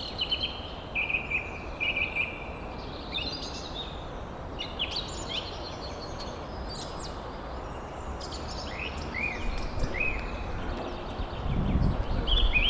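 Songbirds chirping and singing, many short repeated and sweeping high notes, over a steady outdoor hiss. A low rumble swells near the end.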